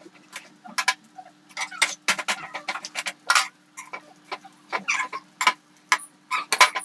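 Oil crackling and popping irregularly under an aval adai (poha adai) frying on a hot dosa tawa, several sharp pops a second, over a faint steady low hum.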